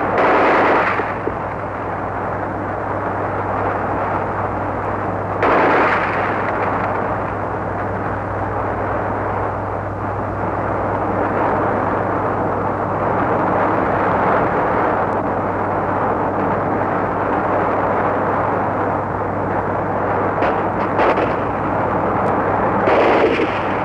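Large crowd cheering and shouting in an old archival recording, a dense continuous roar that swells louder right at the start, at about six seconds and near the end. A steady low mains hum runs underneath.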